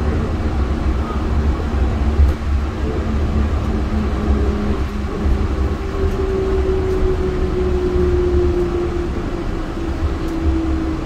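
Yurikamome rubber-tyred automated train running along its elevated guideway, heard from inside the cabin: a steady low rumble with a motor whine that slowly falls in pitch through the second half as the train slows toward a station.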